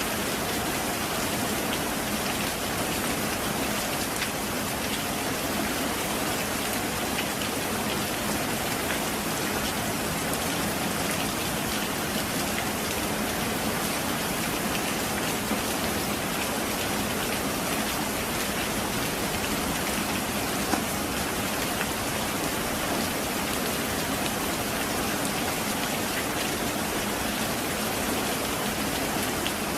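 Heavy rain falling steadily: a dense, even hiss of rain on surfaces, with faint scattered drop ticks.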